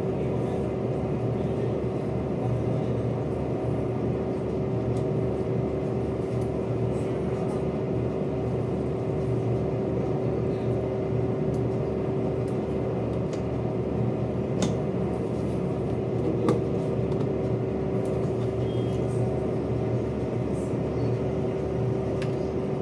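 Washing machine motor running steadily with a constant hum and an even low throbbing pulse, with a couple of short clicks about two-thirds of the way in.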